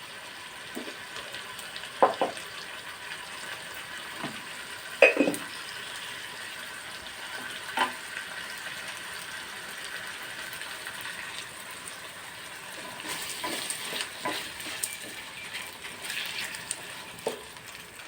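Chopped tomatoes and vegetables sautéing in oil in a kadai with a steady sizzle, stirred with a spoon that knocks against the pan a handful of times, loudest twice in the first few seconds. The tomatoes are being cooked down with salt so they soften.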